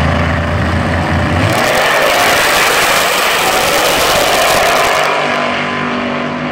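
Two drag-racing cars' engines rumbling at the start line, then launching at full throttle about a second and a half in. The loud run lasts roughly three and a half seconds and drops away as the cars pull off down the strip.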